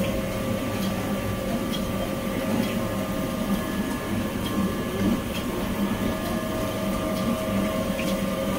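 Small oil mill's electric motor running with a steady hum of several fixed tones, pumping freshly pressed safflower oil out through the filling pipe.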